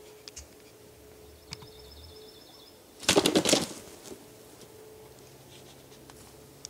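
Wild turkey wings flapping hard in a short, rapid burst of beats about three seconds in, lasting under a second.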